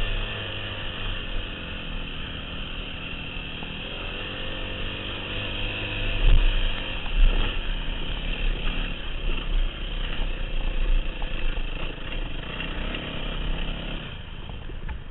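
Yamaha WR250F four-stroke single-cylinder dirt bike engine running as the bike rolls down a rutted, rocky dirt slope, heard from a helmet-mounted camera. It comes with heavy low knocks and jolts from the rough ground, loudest about six to seven seconds in.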